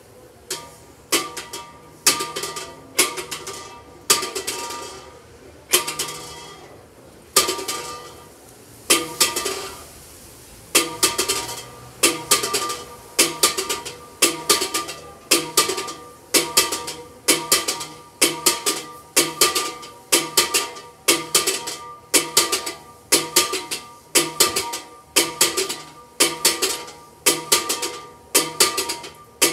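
The large church bell San Pascual swung in full rotation (volteo), its clapper striking with a ringing tone that hangs between strokes. The strokes come unevenly at first, then settle after about ten seconds into a fast, even beat as the bell reaches full swing. It is being rung for a storm.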